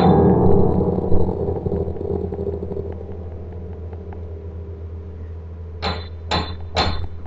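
Upright piano: a low chord struck at the start and left to ring, fading away over several seconds. Three sharp knocks about half a second apart come near the end, over a steady low hum.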